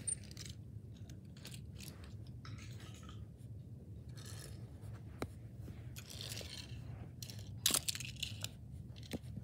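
Faint handling noises: small clicks and rustles as die-cast toy cars are picked up and moved about on a carpet, with a few sharper ticks near the end over a low steady hum.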